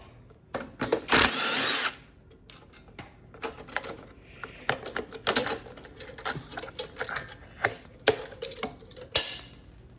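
Hand tools working on a small engine: a socket ratchet clicking in short irregular runs, with small metal clinks and knocks, after a loud rasping noise of about a second near the start.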